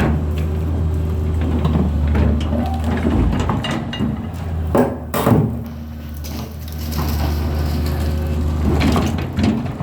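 Engine of a CAT marble drilling machine running steadily with a low hum. A few sharp knocks and clanks come about halfway through and again near the end.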